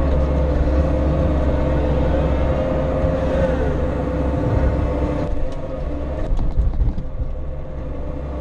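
Bobcat E42 compact excavator's diesel engine running under load, with hydraulic whine, as the bucket digs and swings a scoop of dirt. About five seconds in, the whine drops away and a few knocks follow.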